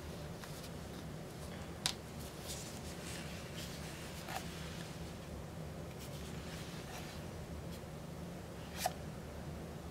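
Faint rustling and handling noise of gloved hands with a plastic squeeze bottle of acrylic paint, over a steady low hum. Two sharp clicks stand out, one about two seconds in and one near the end.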